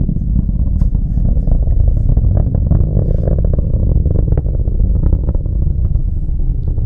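Distant PSLV rocket launch: the rumble of its solid-fuel motors, steady and deep, with frequent crackles over it.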